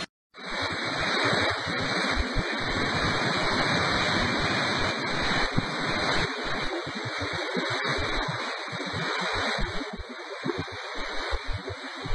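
Storm-surge floodwater rushing and churning through a street: a steady, dense rush of water that begins after a moment's silence.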